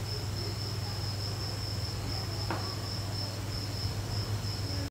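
Background room noise with no speech: a continuous high-pitched insect-like trill that pulses slightly, over a steady low hum, with one faint click about two and a half seconds in.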